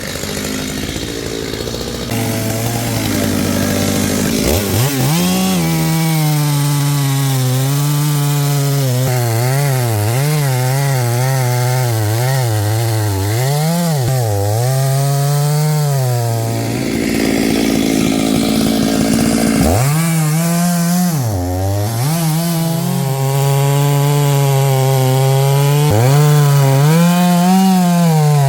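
Stihl two-stroke chainsaw idling briefly, then revved into wood, its engine note repeatedly dipping and rising as it loads up in the cut.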